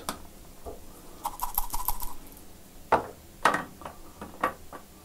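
Light clicks and taps: a quick run of small clicks about a second in, then four separate sharp taps roughly half a second apart.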